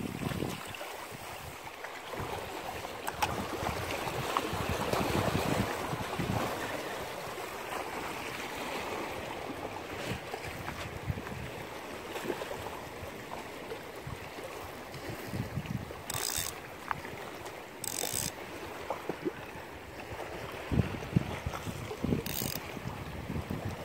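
A spinning fishing reel and rod being handled, with the reel's mechanism clicking over a steady hiss of wind and sea. Three short sharp hisses come in the second half.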